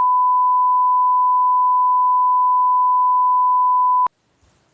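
A loud, steady electronic beep at one unchanging pitch, cutting off suddenly about four seconds in.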